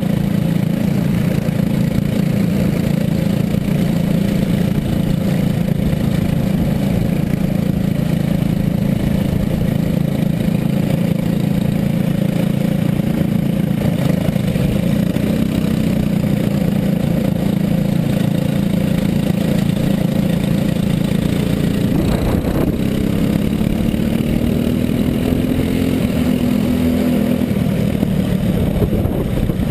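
Four-stroke single-cylinder kart engine, a Briggs & Stratton Animal, running hard at racing speed, its pitch rising and falling with the throttle through the corners. A little past two-thirds in it climbs in pitch on a straight, then drops off near the end.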